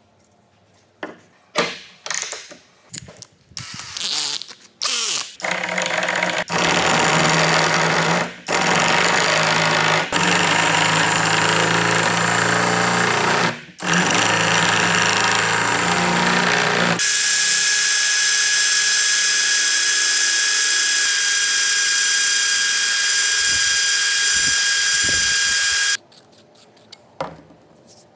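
Cordless drill spinning a wooden blank on a bolt against an upturned hand plane, the blade shaving it round with a loud steady rasping over the motor hum, pausing briefly twice. The drill then keeps running for several seconds with a steady high whine and stops suddenly near the end, after a few knocks of wood being handled at the start.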